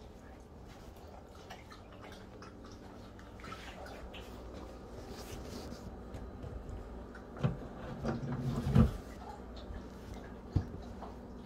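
Siberian husky licking peanut butter, with soft wet smacking and licking clicks. A few louder knocks come in the second half.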